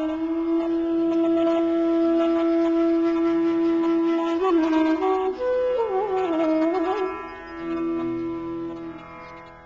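Indian classical music on a wind instrument over a steady drone. It holds one long note for about four seconds, then plays sliding, ornamented phrases and settles on another held note before fading near the end.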